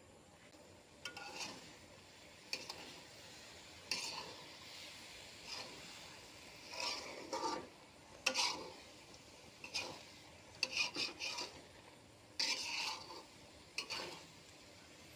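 A spatula scraping and stirring in a cooking pan: a series of short, irregular scrapes, some in quick clusters.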